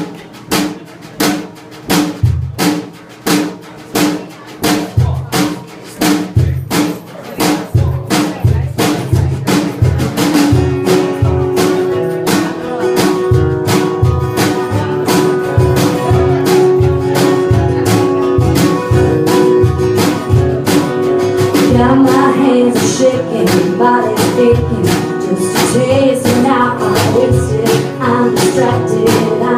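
Live country band starting a song: a drum kit plays a steady beat of kick and rim hits alone at first. Guitars and other instruments join about ten seconds in, and women's voices begin singing in the second half.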